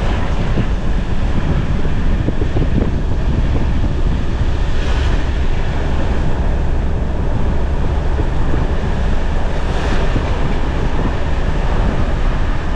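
Steady wind noise rushing over the microphone, over the low rumble of a vehicle driving slowly along a dirt campsite track.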